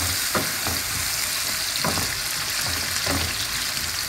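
Sliced onions, tomatoes and fresh pepper sizzling in hot groundnut oil in a flat pan, stirred with a spatula that knocks and scrapes against the pan a few times.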